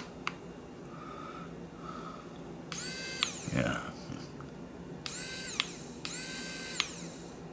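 Small motor of a rechargeable electric precision screwdriver whining as it spins up, runs and winds down, three short runs of about a second each, with a few light clicks during them.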